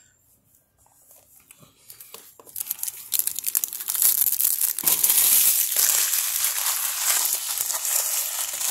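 Foil-lined trading-card pack wrapper being torn open and crinkled by hand. Scattered crackles start about two seconds in and build into continuous crinkling from about four seconds on.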